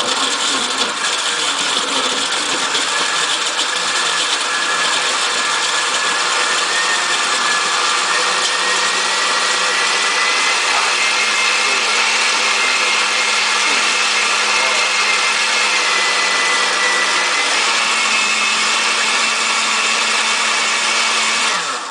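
Countertop blender running at full speed, crushing frozen strawberries with lemonade. The motor's whine climbs slowly in pitch as it runs, then cuts off abruptly near the end.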